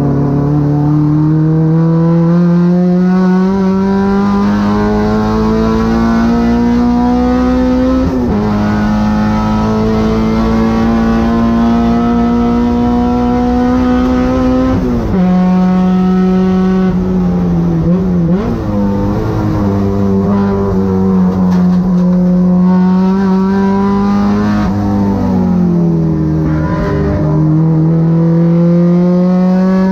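Honda K24 four-cylinder race engine in a 2006 Civic under hard acceleration. It climbs steadily through the revs, drops sharply about eight seconds in at an upshift, then holds long pulls high in the rev range. Revs fall again around fifteen seconds and dip around twenty-five seconds before climbing once more.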